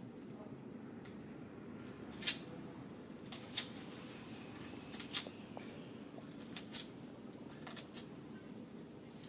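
A macaque biting and chewing a fibrous sugarcane stalk: sharp, crisp crunching snaps, often in quick pairs, over a low steady background hum.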